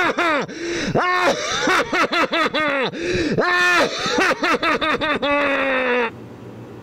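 A maniacal villain's laugh: a long run of short "ha" syllables, each rising and falling in pitch, that cuts off suddenly about six seconds in, leaving a low steady hum.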